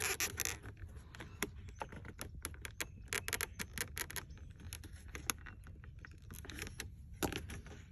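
Irregular light clicks and taps as a flexible window deflector is pressed and worked into a truck door's window channel by hand.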